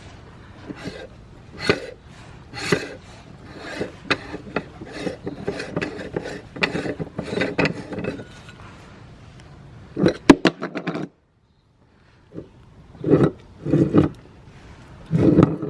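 Eggs being crushed in a meat grinder: irregular crunching, crackling and rasping with many sharp clicks. The sound breaks off briefly about ten seconds in, then returns as three short bursts.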